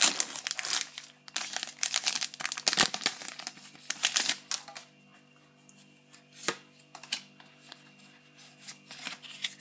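Foil wrapper of a Pokémon TCG booster pack crinkling and tearing as it is ripped open and peeled off the cards. The sound is busy for about the first five seconds, then dies down to a few soft clicks.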